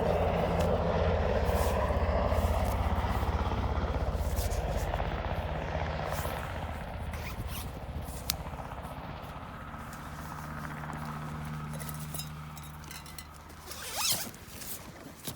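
Low-flying aircraft passing overhead, a deep engine drone with a fast chopping pulse, loud at first and fading away over about ten seconds. A short rasp near the end.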